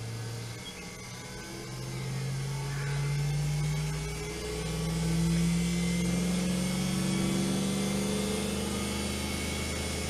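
Treadmill's 24-volt DC drive motor running with no load as its speed is stepped up toward top speed. Its hum rises in pitch in a series of steps and grows louder.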